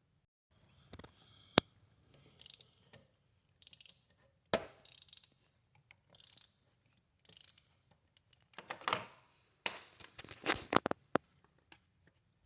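Hand tools working on a motorcycle during an oil change: scattered sharp metal clicks and knocks, with several short rattling runs, busiest near the end.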